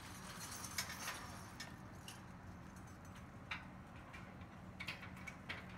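Scattered sharp clicks and knocks, spaced irregularly about a second or more apart, from workers fitting together the metal tubes of a geodesic dome tent frame, over a steady low hum.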